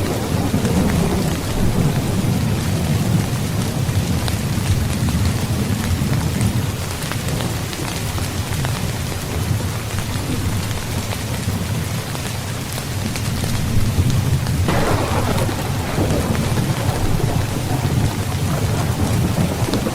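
Steady heavy rain with low, rolling thunder rumbling underneath. About three-quarters of the way through, a sharper thunderclap breaks in and then rolls on.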